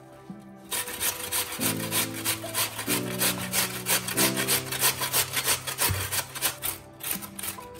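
Peeled raw potato grated on a stainless steel box grater standing on a wooden board: quick, even rasping strokes, about three a second, starting about a second in.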